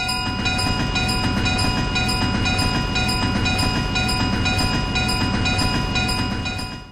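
Passing-train sound effect: a steady rumble with rapid wheel clatter, with a level-crossing bell ringing over it. It cuts off suddenly near the end.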